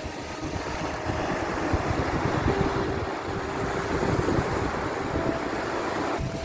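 Sea surf: waves washing and breaking in a steady, churning rush, with a few faint held tones in the background.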